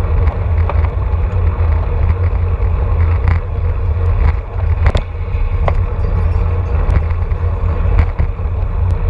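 Wind rumbling on the microphone of a handlebar-mounted camera on a road bike riding at about 25 mph in a pack, a steady low buffeting, with scattered sharp clicks and ticks.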